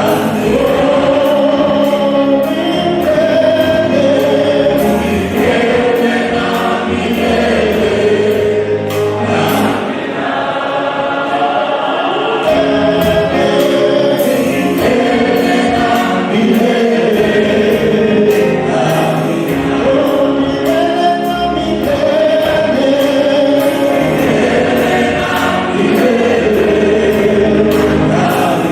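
A choir singing a gospel song with instrumental accompaniment and a steady beat.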